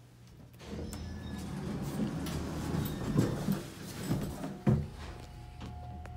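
Vintage Armor traction elevator in operation, heard from inside the cab: a low hum with irregular clunks and rattles, a loud thump about four and a half seconds in, then a steady whine from about five seconds on.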